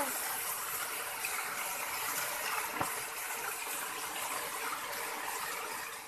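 Waterfall spilling in thin streams down a rock face: a steady rush of falling water.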